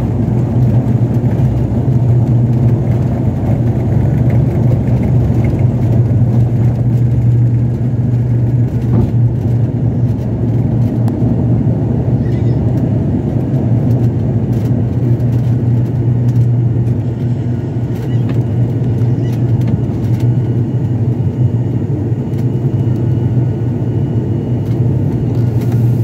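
Steady low drone of an ATR 42-600's Pratt & Whitney PW127 turboprops and six-bladed propellers at takeoff power, heard inside the cabin next to the engine, through the takeoff roll and climb-out.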